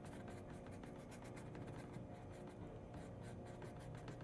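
Faint, rapid scratchy strokes of a small paintbrush working acrylic paint onto the painting surface, several strokes a second.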